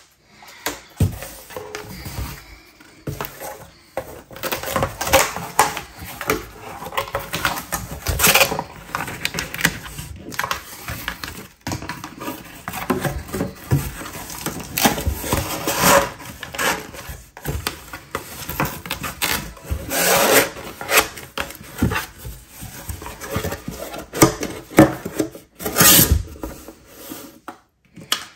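Corrugated cardboard mailer boxes being folded and assembled by hand on a desk: an irregular run of scrapes, creases, rustles and sharp taps of cardboard on the tabletop.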